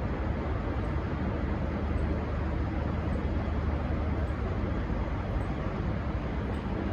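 Diesel-hauled passenger train running at a steady pace, a low, even rumble with no horn.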